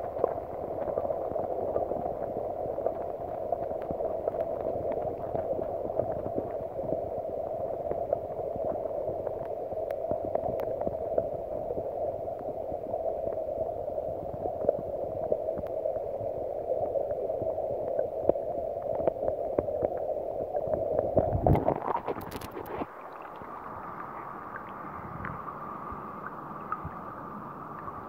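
Muffled water noise picked up by a smartphone microphone held underwater: a steady, dull rushing with scattered small clicks. About 22 seconds in there is a loud sloshing disturbance as the phone comes up to the surface, after which the water sounds quieter and thinner.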